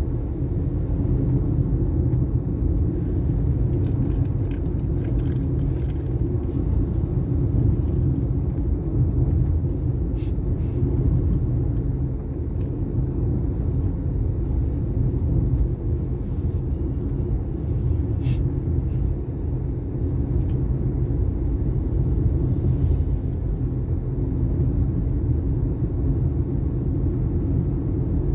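Steady low rumble of a vehicle travelling along a highway: engine, tyre and wind noise.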